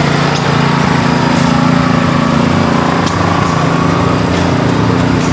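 A small engine running steadily with an even drone, plus a few faint ticks.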